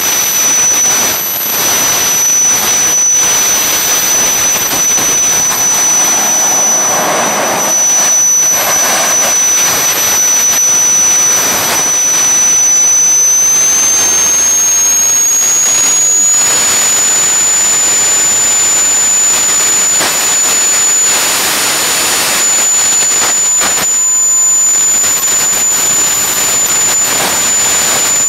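Homemade turbojet engine with a centrifugal compressor running loud and steady: a dense exhaust rush under a high compressor whine. About halfway through, the whine steps up in pitch as the engine spools up.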